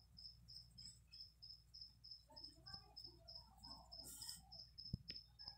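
Faint insect chirping, a high-pitched chirp repeating steadily about four times a second, with a single sharp tap near the end.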